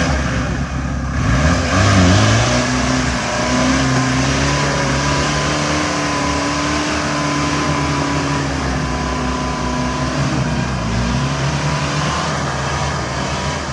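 Off-road 4x4 engine revving up under load about two seconds in and held at high revs, with a steady higher whine alongside, then easing off near the end.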